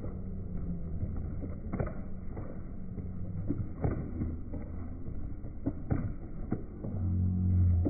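Muffled low rumble like wind buffeting a phone microphone, broken by a few soft knocks about every two seconds. A low steady hum comes in near the end.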